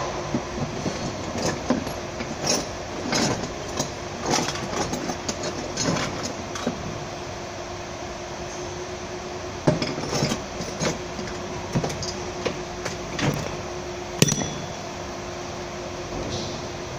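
Metal hand tools clinking and knocking against the underside of a van in irregular short taps, with two sharper knocks near the middle, over a steady workshop hum.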